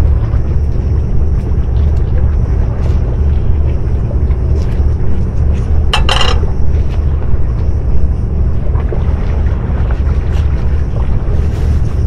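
Wind buffeting the microphone as a heavy, steady low rumble, with the sea washing underneath. A short, sharper sound cuts through about halfway.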